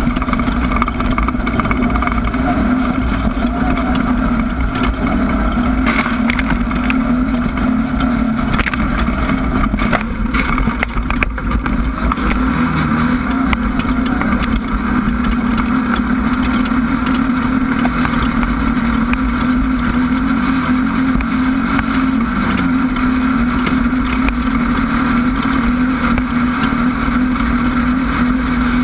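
Class 1600 desert race buggy's air-cooled Volkswagen engine running at steady high revs over a low rumble. A cluster of sharp knocks and rattles comes about six to twelve seconds in, typical of the car hitting rough ground.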